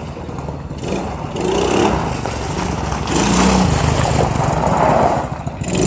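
ATV (four-wheeler) engine running as it is ridden, getting louder about three seconds in as it revs up or comes closer.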